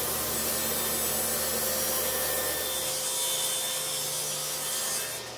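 Table saw ripping an ash board: the blade cuts with a steady noise over the motor's hum, which drops away about five seconds in.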